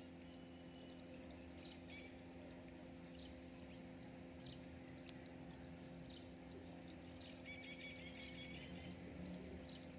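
Faint small water splashes and slurps as a swarm of tilapia fingerlings crowd and nibble at a hand held in the tank water, over a steady low hum.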